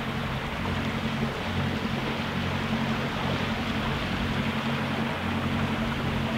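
Engine of a motor cruiser on the river running with a low, steady drone, over a steady hiss.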